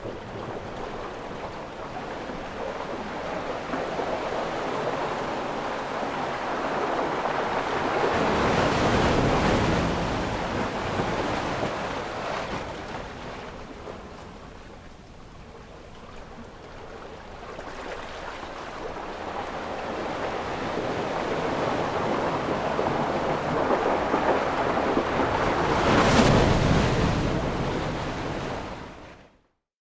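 Sea waves breaking and washing ashore: two waves swell up and break, about a third of the way in and again near the end, with a quieter lull between them. The sound cuts off abruptly just before the end.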